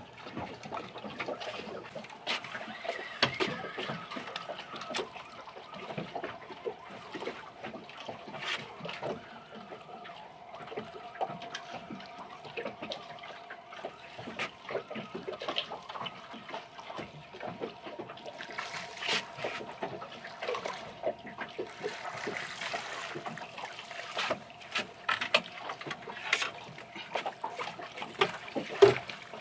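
Water lapping and sloshing against a small boat's hull, with frequent sharp clicks and knocks and a faint steady hum underneath.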